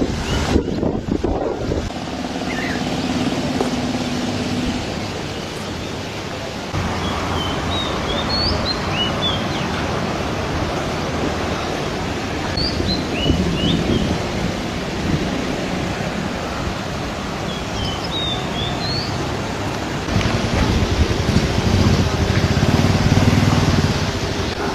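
Outdoor ambience of steady wind and background noise, with a low engine hum for a few seconds near the start. A few short bird chirps come in the middle.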